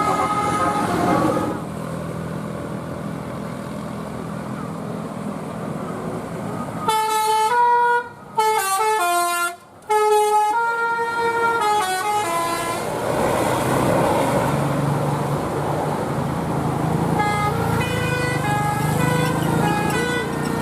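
A bus's multi-tone telolet air horn plays a tune of stepped notes. A few notes sound at the start, the loudest run of notes comes from about a third of the way in with two brief breaks, and a softer run follows near the end. The bus's engine runs underneath.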